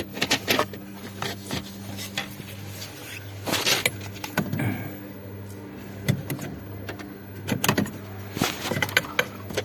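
Scattered clicks and light rattles of small parts and tools being handled, with a few louder knocks about a third of the way in and again near the end, over a steady low hum.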